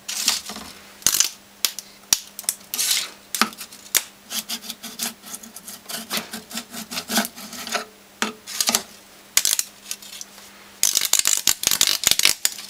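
Sharp snaps and crackles of electrical arcing as an electrolytic capacitor's foil plate is shorted across a rewound microwave oven transformer, scattered at first, then a dense run of crackling in the last two seconds as sparks fly.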